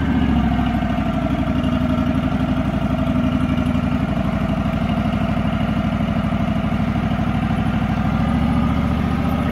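Portable band sawmill's engine running steadily with an even, fast pulse, and a faint whine above it that sags slightly in pitch and comes back up.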